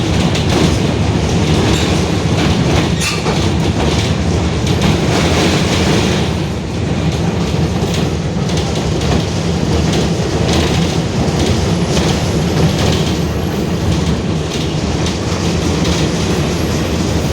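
Mercedes-Benz OF-1721 BlueTec 5 city bus under way: its diesel engine and drivetrain running steadily with a growling rear differential, and the body rattling throughout. The level dips briefly about six seconds in.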